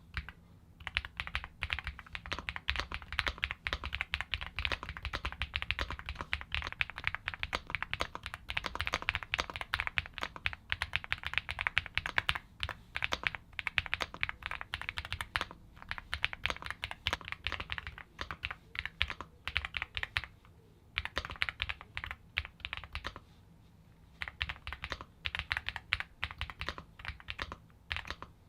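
Fast typing on an Epomaker x Feker Galaxy80 mechanical keyboard with Feker White Marble switches, a dense run of clacky keystrokes that sound like a bag of marbles. There are brief pauses about 15 and 20 seconds in, and a longer one about 23 seconds in.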